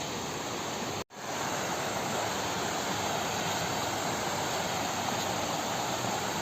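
Waterfall rushing: a steady hiss of falling water, cut off for a split second about a second in, then back.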